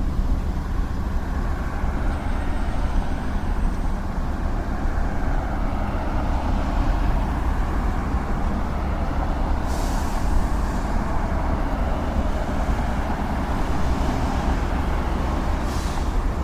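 Street traffic: a steady rumble of passing cars, trucks and buses. Two short, sharp hisses stand out, about ten seconds in and again near the end.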